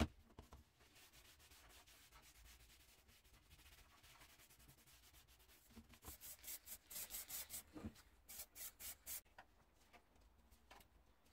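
A pre-paint wipe rubbed back and forth over a painted metal scale part. A sharp click comes at the very start, then faint rubbing, then a run of quicker, louder wiping strokes from about six seconds in.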